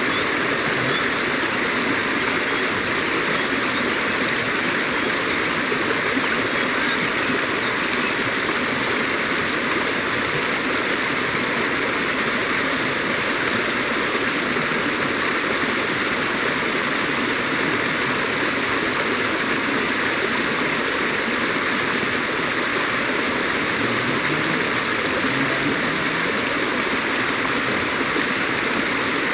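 River water running over rocks: a steady rushing flow.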